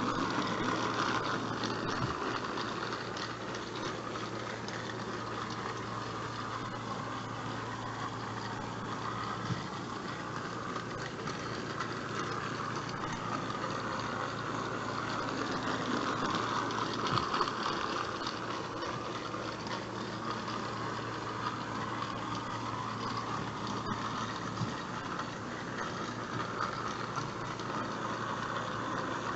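Battery-powered Trackmaster Salty toy engine's small electric motor running with a steady whir.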